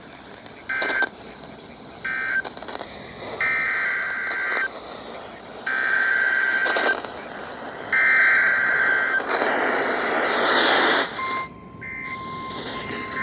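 Emergency Alert System SAME data tones from a NOAA Weather Radio broadcast: two short end-of-message chirps, then three longer warbling digital header bursts of about a second and a quarter each for the next warning, followed by a burst of hiss. About eleven seconds in, the steady 1050 Hz NOAA Weather Radio warning alarm tone begins.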